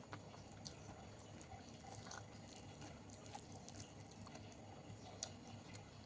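Faint eating sounds: scattered soft, wet mouth clicks from chewing food, over a low steady hum.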